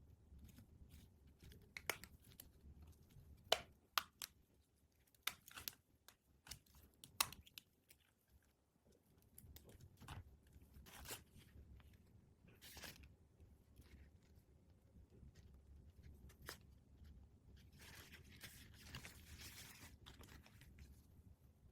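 Toy packaging and miniatures handled by hand: a scattering of sharp plastic clicks and taps, then a stretch of crinkling packaging near the end.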